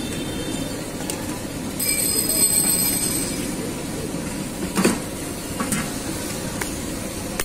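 A high metallic squeal held for about a second and a half over steady street background noise, followed by a sharp knock about five seconds in.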